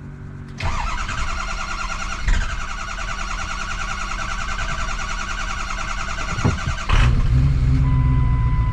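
Ford 6.0L Power Stroke V8 turbo diesel cranking on the starter for about six seconds, then catching about seven seconds in and running, clearly louder. It is a hard start that the owner puts down to the engine needing a little throttle to fire.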